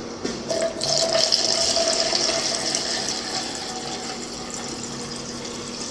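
Liquid being poured, taken for gas and oil going into a 50cc mini dirt bike's fuel tank: a steady splashing pour that starts about a second in.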